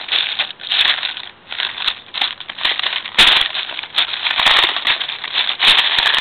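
Plastic Lego bricks clattering and clicking against each other and a plastic tub as a hand rummages through them, in a dense, uneven run of rattles and sharp clicks.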